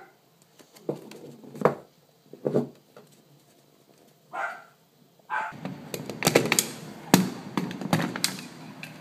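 Paper booklet being handled: a few soft knocks and page flips, then from about halfway a busy run of rustling, clicks and knocks as it is moved about.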